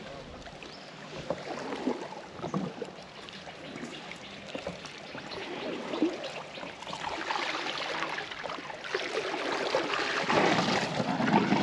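Water sloshing and splashing around an elephant wading through deep water, growing louder in the second half.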